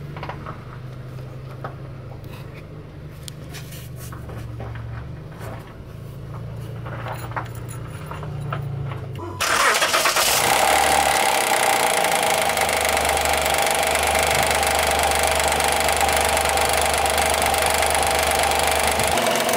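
Honda J30A9 V6 engine starting suddenly about halfway through and then running loud and steady with its timing-belt covers off. It carries the cold-engine knock of a failing timing-belt tensioner that does not extend fully, letting the tensioner pulley jump.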